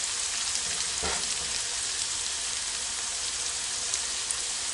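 Sliced carrots, green onion and bean sprouts sizzling steadily in hot oil and butter in a wok over high heat, with one knock about a second in.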